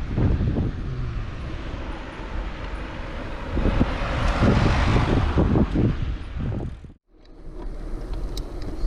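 Wind buffeting the microphone and mountain-bike tyres rumbling over a dirt trail as the bike is ridden. The noise cuts out abruptly about seven seconds in, then comes back.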